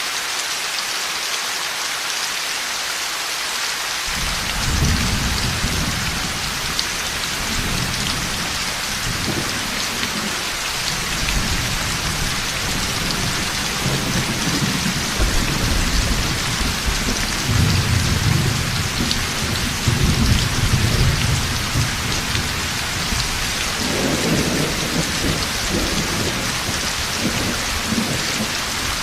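Heavy rain falling steadily. About four seconds in, rolling thunder begins, rumbling on and off through the rest, loudest around two-thirds of the way in.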